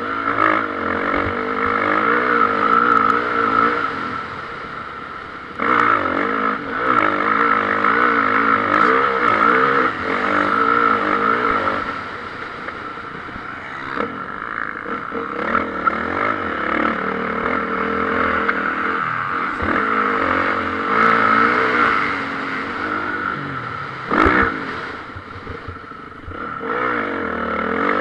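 Motocross bikes racing, their engines revving up and down continuously. The engine noise swells and fades as the bikes pass, with a sudden jump in loudness about five and a half seconds in and a brief sharp peak near the end.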